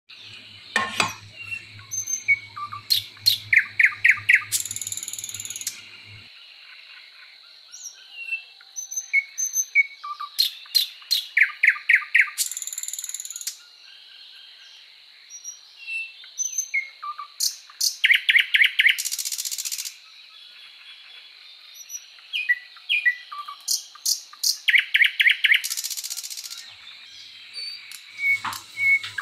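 A songbird singing the same phrase over and over, about every seven seconds: sharp clicks, a quick run of trilled notes and a buzzy hiss.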